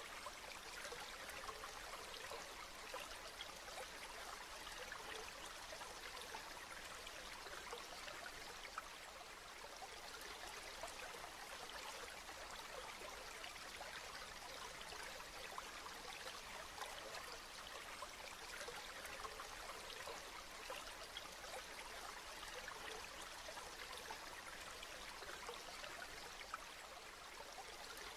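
Steady rain falling: an even hiss of many small drops, unchanging throughout.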